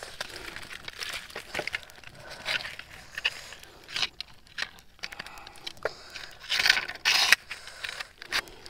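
Dry twigs and brush crackling and scraping as a hand scoop net and a stick are pushed and worked through them, in irregular bursts with the loudest rustling about two-thirds of the way through.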